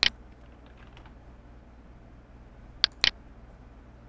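Computer mouse clicking: a click at the start, then two sharp clicks close together about three seconds in, over a faint steady low hum.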